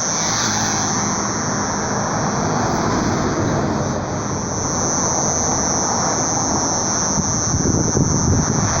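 A steady, high-pitched buzz like a cicada's, which the recordist says comes from the sky and follows them for kilometres; it briefly fades about four seconds in. Beneath it runs a steady rush of lower noise.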